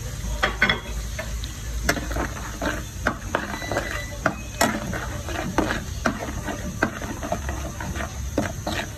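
A spoon stirring garlic and spices frying in oil in a metal pan, knocking and scraping against the pan in irregular clinks several times a second over the low sound of the frying oil.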